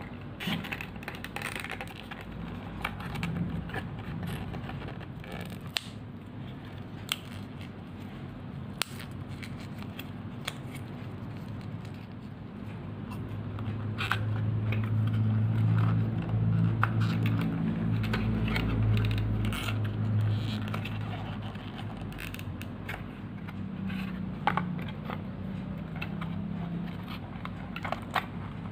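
Stiff card pieces of a 3D house puzzle rubbing, scraping and clicking as they are handled and pushed into their slots, with scattered sharp taps. A low hum swells up about halfway through and fades again several seconds later.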